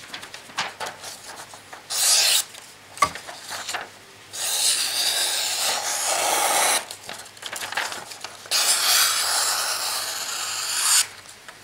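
Air Force survival knife with a freshly honed micro convex edge slicing through sheets of printer paper, a papery hissing rasp. There is one short cut about two seconds in, then two longer cuts of about two seconds each. This is a sharpness test of the new edge.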